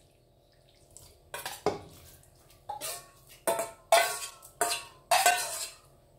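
A metal spoon knocking and scraping against a stainless-steel bowl, about eight clattering knocks, each leaving the bowl ringing briefly, as chunks of raw beef are scraped out into a pressure cooker.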